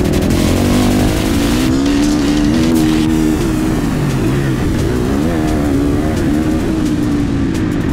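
Motocross bike's engine revving as it accelerates along a dirt track, its pitch rising and dipping several times, with wind rushing over the microphone.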